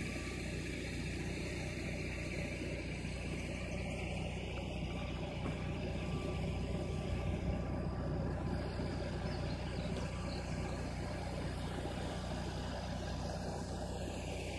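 A steady, low engine hum with an even rumble underneath, unchanging throughout.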